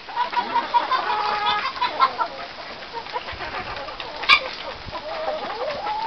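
A flock of chickens clucking, many short calls overlapping, with one sharp click about four seconds in.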